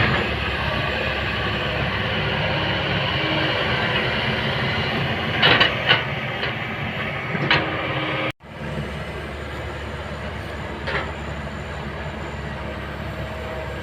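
Kobelco hydraulic excavator's diesel engine running under load with a steady rumble, with a few sharp knocks from the working machine about halfway through. The sound cuts out for an instant, then continues a little quieter.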